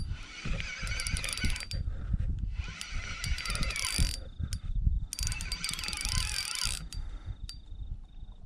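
Fishing reel being cranked in three spells of about a second and a half each, with short pauses between, as a hooked fish is wound in. Low rumbling thumps run underneath.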